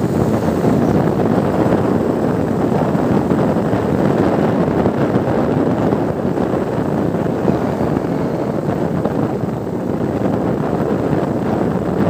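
Wind buffeting a cellphone's microphone on a moving motorcycle: a steady rushing noise.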